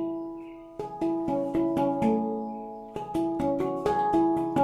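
Hang drum (steel handpan) played with the fingertips: single struck notes ring out and fade. The notes come sparsely at first, then in a quicker run from about three seconds in.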